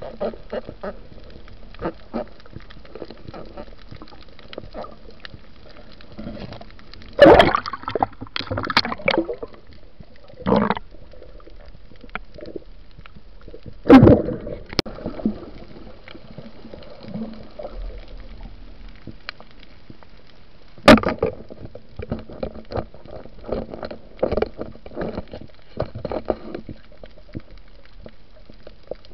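Water gurgling and bubbling, recorded underwater, with scattered small clicks and three loud sharp knocks spread evenly through the stretch, each followed by a brief burst of bubbles.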